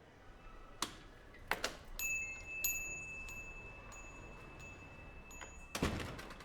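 A small bell or chime struck lightly several times, its high tone ringing on for a few seconds, after a few soft clicks. A short thump comes near the end.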